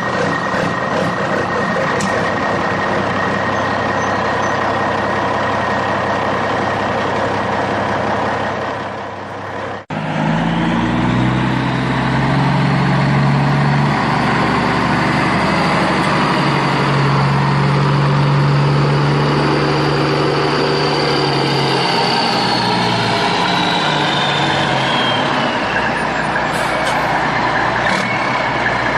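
Heavy-vehicle engine running steadily, like a truck or digger. About ten seconds in it cuts abruptly to a deeper, louder engine note, with a high whine that slowly falls away later on.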